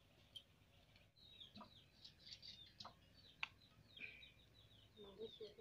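Faint chirping of birds with chickens clucking, the clucking clearer near the end, and a few sharp clicks, the loudest about three and a half seconds in.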